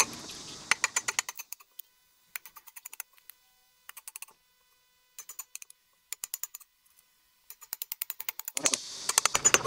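Chisel paring down the end grain of a wooden post to shape a round tenon. It makes short runs of crisp crackling clicks, several times over, as the blade splits off the wood fibres.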